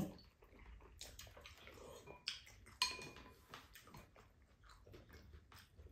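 Quiet mealtime sounds: spoons and chopsticks tapping and clinking against ceramic bowls, with chewing. There are scattered light ticks and a couple of brighter clinks around the middle.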